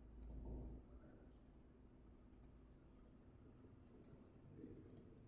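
A few faint computer mouse clicks, several in quick pairs about a second and a half apart, over near-silent room tone, with a brief low rumble in the first second.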